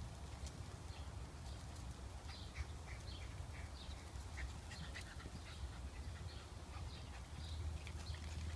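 Many short, high-pitched animal calls scattered through, over a low steady rumble.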